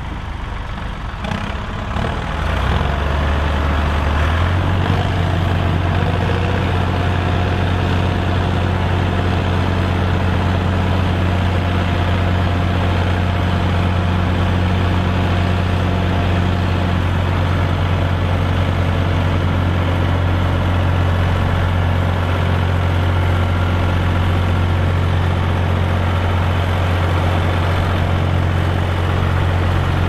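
Ford 4610 tractor's diesel engine running hard in deep mud. It comes up onto load about two to three seconds in, then holds a steady, heavy, low note.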